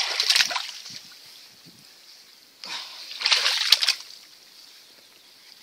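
Shallow muddy water sloshing and splashing as hands dig and pull in it, in two bursts: one right at the start and a longer one about three seconds in.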